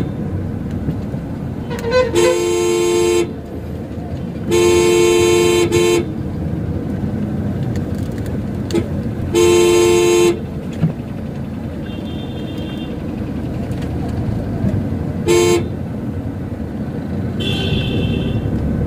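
Car horn honking four times, three toots of about a second and one short one, over the steady hum of the car running and road noise heard from inside the cabin. A fainter, higher-pitched horn sounds twice in the last third.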